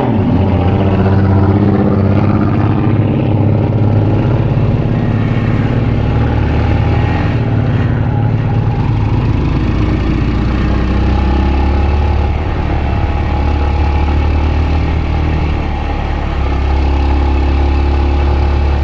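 Yamaha YBR125's single-cylinder four-stroke engine running while the motorcycle is ridden, at a fairly steady pitch with a brief drop in revs near the end.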